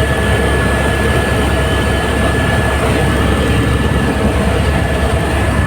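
Helicopter running steadily: a loud, constant noise of turbine engine and rotor, with a steady high whine over a low rumble.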